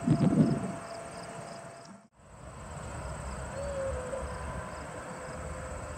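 Insects trilling, a steady high buzz with a regular chirp about three times a second, over the low rumble of a taxiing twin-engine jet's engines. A short, loud rustling burst comes at the very start, and the sound cuts out for a moment about two seconds in.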